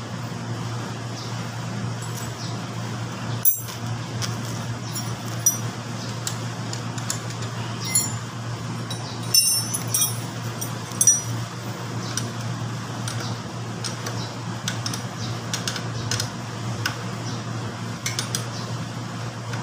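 Scattered metallic clinks and taps of hand tools on motorcycle brake parts and bolts during reassembly, a few louder ones standing out, over a steady low hum.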